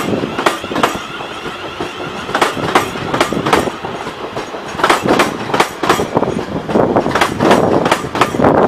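Class 350/4 Desiro electric multiple-unit train rolling past, its wheels clicking over the track joints in quick pairs and groups over a steady rumble of rolling noise. It grows louder near the end.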